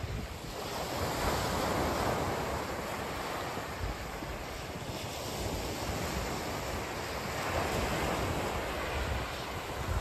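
Wind rushing over the microphone of a moving bike-mounted phone, with a low buffeting rumble. It swells and eases twice.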